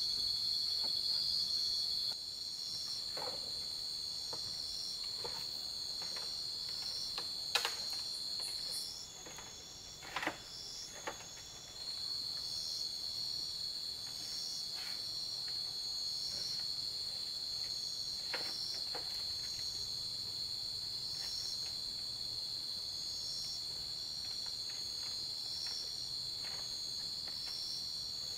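Night insects, chiefly crickets, trilling in a steady high-pitched chorus with a pulsing rhythm above it. The main trill drops out for about three seconds partway through, and a few short clicks sound over the chorus.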